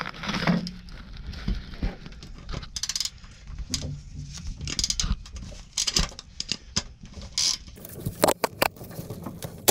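Socket ratchet wrench clicking and metal tools clinking in irregular bursts while a nut holding a ground-wire terminal on the engine block is loosened, along with the rustle of wires being handled.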